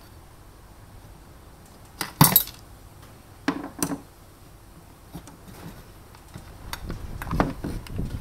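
Clatter and knocks of an Ambiano egg cooker's metal heating plate and plastic housing being handled and pulled apart: one sharp, loud clatter about two seconds in, two lighter knocks a second or so later, then a run of smaller knocks and rustling near the end.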